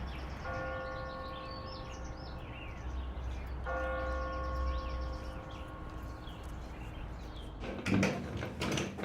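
A large bell tolling twice, about three seconds apart, each stroke ringing on and slowly fading, over birds chirping and a low steady rumble. About a second before the end the scene changes to a run of sharp knocks and clicks.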